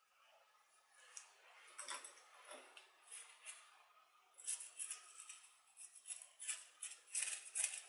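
Gritty potting mix of small granite grit (masa) scratching and crunching as gloved fingers and a wooden chopstick work it in around a potted succulent. Faint rustling at first, then a run of quick scratchy strokes from about halfway through.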